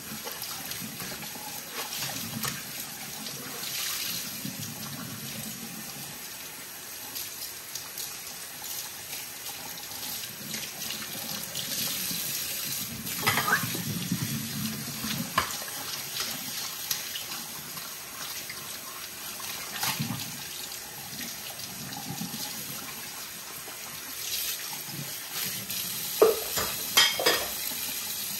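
Water running from a tap into a sink, with a few short knocks and clatters of things being handled in it, loudest near the end.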